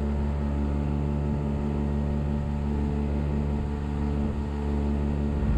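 Outboard motor of a small aluminium tinny running steadily under way: an even engine hum, with a hiss of wind and water over it.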